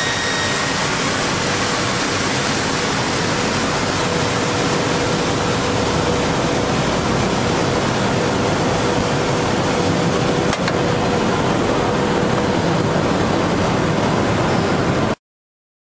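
Twin circular saw blades of a wood door-frame tenoning machine running without cutting: a loud, steady rushing noise with a faint hum, and one brief click partway through. The noise stops abruptly near the end.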